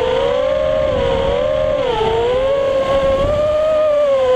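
FPV quadcopter's brushless motors and propellers whining, heard close from the onboard camera while running on a 3S battery. The pitch wavers with the throttle, dipping briefly about two seconds in and climbing back.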